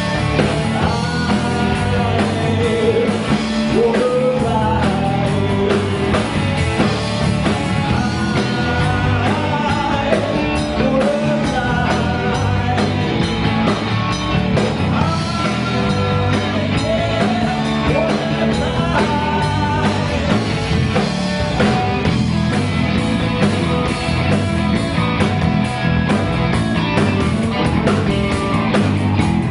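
Live blues band playing: a lead line bending in pitch over a steady bass and a regular beat.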